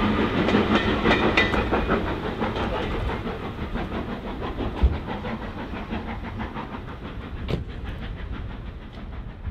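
Steam-hauled passenger train running away down the line, its rhythmic clatter and rumble fading steadily as it recedes.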